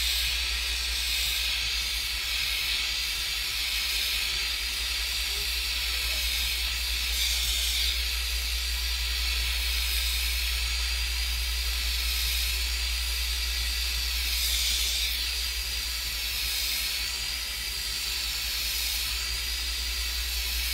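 Smith Little Torch with a rosebud tip burning steadily, a constant flame hiss that wavers slightly as the flame is moved, over a steady low hum, while it anneals a ring blank.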